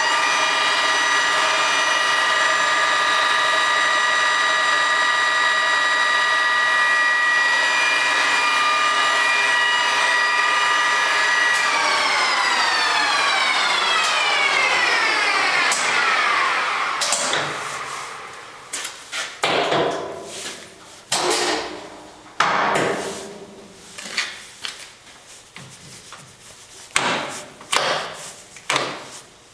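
Promax 26-inch by 120-inch engine lathe running with a steady gear whine made of several tones for about twelve seconds, then falling in pitch over about five seconds as it coasts to a stop. After that come short, irregular clunks and rasps from the carriage handwheels and apron levers being worked by hand.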